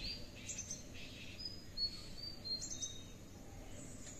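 Small birds chirping: scattered short, high chirps over a faint, steady outdoor background noise.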